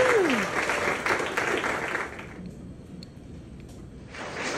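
Audience applauding and cheering, with a long held whoop sliding down in pitch at the start. The clapping dies down about two seconds in and picks up again near the end.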